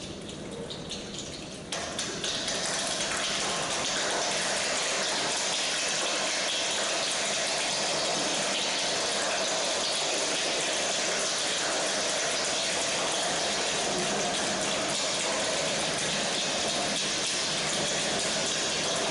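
A large group of children imitating heavy rain with their hands and bodies, a dense steady rushing noise. It gets louder about two seconds in, then holds level.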